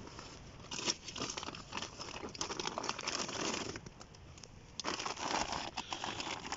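Plastic bags and a foil cool-bag lining crinkling as they are rummaged through and pulled out of a pack, in two spells of rustling with a short lull just past the middle.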